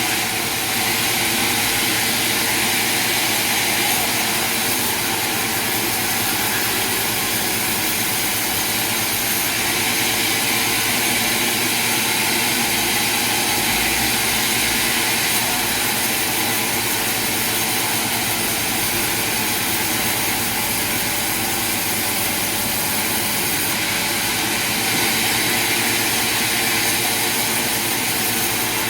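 Sawmill machinery running steadily: a loud, even whirring hiss with a few steady tones underneath, unchanging throughout.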